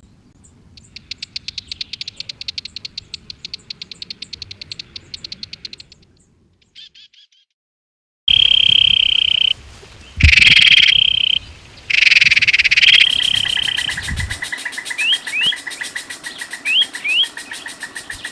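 Animal calls in separate cut-together pieces. First a fast, high rattling trill for about six seconds. After a short pause come loud, sustained high whistled tones broken by noisy bursts. From about two-thirds of the way through, a steady high pulsing trill runs with short rising chirps repeated in pairs.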